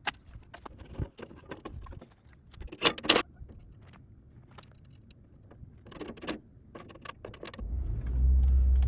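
A string of sharp light metallic clinks and taps, jangling like keys or loose hardware, loudest about three seconds in. Near the end a steady low rumble starts.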